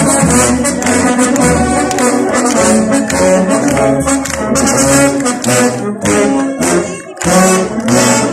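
A brass band (fanfara) playing a lively tune, with trumpets and trombones over a steady low beat; the music dips briefly about seven seconds in and then carries on.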